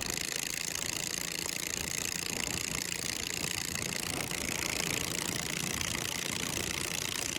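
Small lawn mower engine in a truck, running steadily with a fast, even firing pulse.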